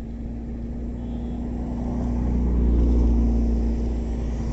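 Running engine and road noise of a moving road vehicle: a steady low drone with a held hum that grows louder toward about three seconds in and then eases slightly.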